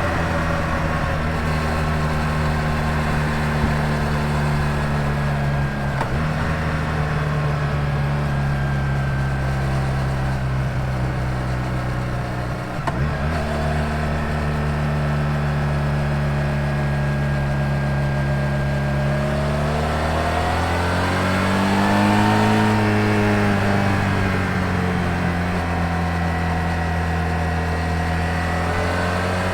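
Honda VF1000R's V4 engine running under way at a steady note, with two brief breaks in the sound about six and thirteen seconds in. About twenty seconds in the engine note rises, then falls back.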